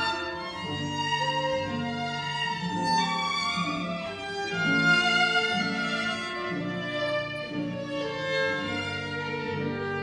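Chamber string orchestra playing, violins on top over cellos and double bass, the notes held briefly and changing every half second or so.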